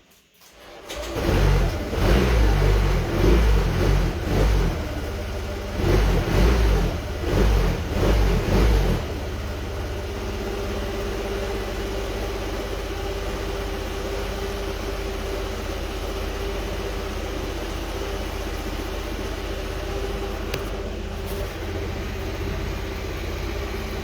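2017 Honda Forza scooter's single-cylinder engine starting for the first time after a rebuild: it catches about a second in and runs in loud, uneven surges, then settles into a steady idle about nine seconds in.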